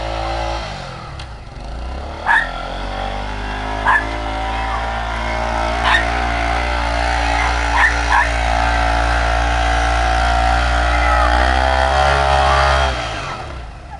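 Four-wheeler ATV engine pulling a rider on a sled through snow: it eases off about half a second in, then picks up and runs steadily under load before dropping away near the end. A dog barks about five times over it.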